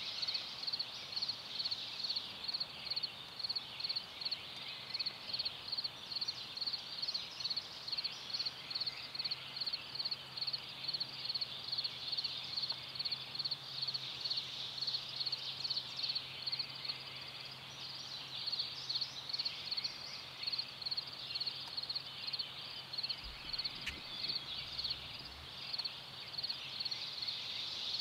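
Steady outdoor animal chorus: a high-pitched call pulsing about twice a second without a break, with a faint low hum through the middle and a single sharp click near the end.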